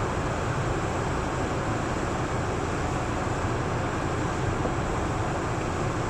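Steady vehicle rumble and road noise with no clear engine note, even throughout.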